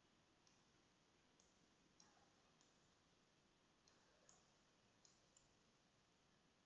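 Near silence with faint computer mouse clicks, about eight of them at uneven intervals, as supports are dragged and placed in 3D-printing slicer software.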